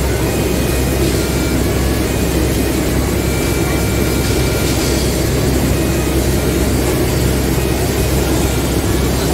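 Tour boat's engine running steadily, a constant low drone heard on board.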